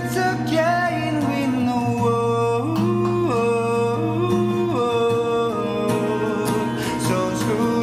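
A man singing a held, gliding melody to acoustic guitar accompaniment.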